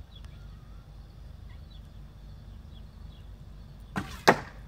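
A traditional bow shot: the string released near the end, then about a third of a second later the arrow hitting the foam block target, the louder of the two sounds.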